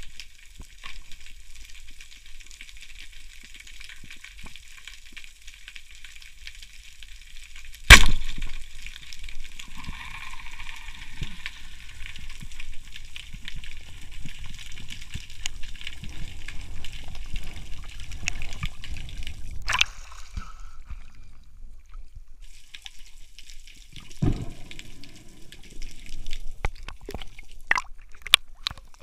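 Underwater recording: a steady high hiss, then about eight seconds in a single loud, sharp crack as a wooden speargun is fired. Low rumbling water noise follows as the diver moves, with scattered knocks and splashes near the end as he surfaces.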